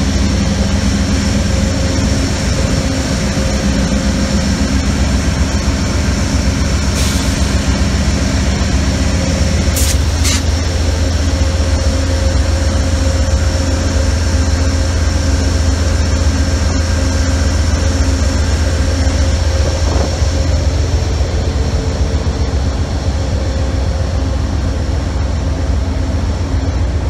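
Amtrak GE Genesis P42DC diesel locomotives running steadily at close range: a loud, constant low engine drone with a steady high whine above it, and a few brief sharp clicks near the middle.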